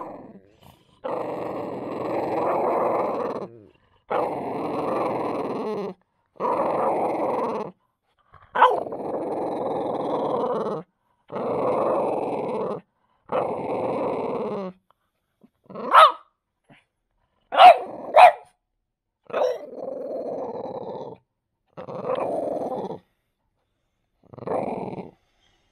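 French bulldog growling in long rumbling stretches of one to two and a half seconds, broken by a few short, sharp barks in the middle. It is guarding its deer bone chew from being taken away.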